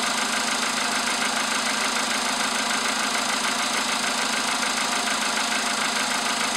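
VW Polo Sedan's CFNA 1.6-litre four-cylinder petrol engine idling steadily with a rapid, even knock, the engine knock the owner is showing, after a cold morning start.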